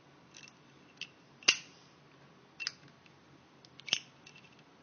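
Metal flip-top windproof lighter being worked through a trick: about five sharp metallic clicks of the hinged lid snapping open and shut, each with a brief ring, the loudest about a second and a half in.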